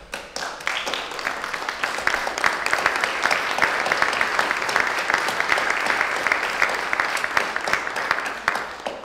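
Audience applauding: a dense patter of many hands clapping that builds up quickly, holds steady for several seconds and dies away near the end.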